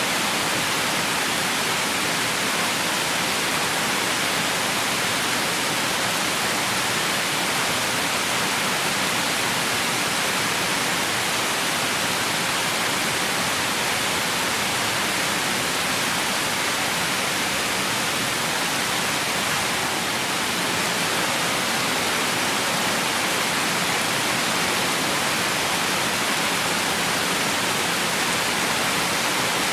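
Heavy rain falling in a steady, even hiss, with no single drops or gusts standing out.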